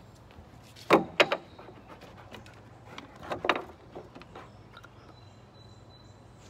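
Knocks and thumps on a wooden deck: two loud, sharp knocks about a second in, then a cluster of thumps around three and a half seconds in, as a dog lands on the boards.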